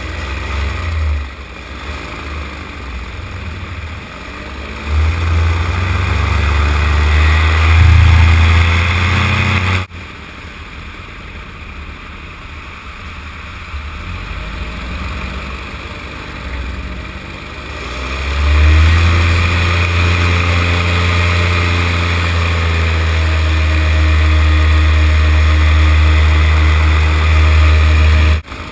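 Paramotor engine and propeller running in flight, throttled up about five seconds in and again about eighteen seconds in, the pitch gliding as the power changes. The sound drops off abruptly twice, near the middle and at the end.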